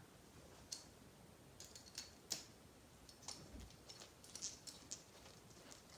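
Faint, scattered clicks of small screws and hard plastic transmission parts being handled and fitted, against near silence.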